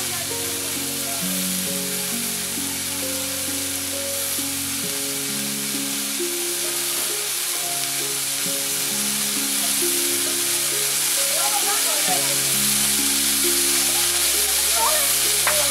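Potato, eggplant and fish pieces frying in oil in a metal wok over a wood fire: a steady sizzle, with background music of held notes.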